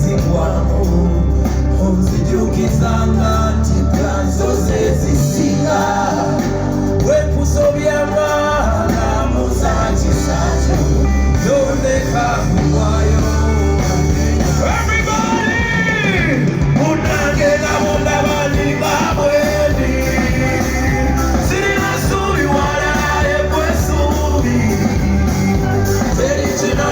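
Live band music with a singer over a strong bass, played loud through a PA system during a sound check.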